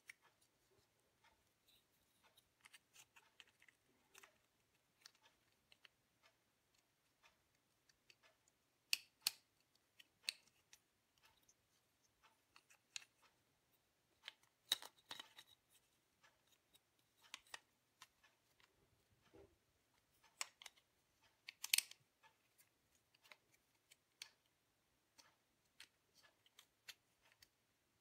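Faint scattered clicks and snaps of small plastic parts as a Daewoo Nexia headlight stalk switch's cover and housing are pressed together, with a few sharper clicks about nine, fifteen and twenty-two seconds in.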